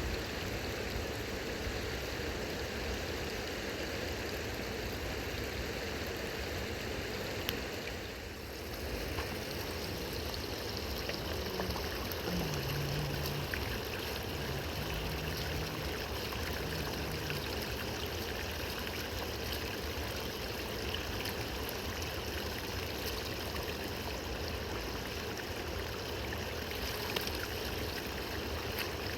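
River water rushing and gurgling in a steady wash, with a brief dip about eight seconds in.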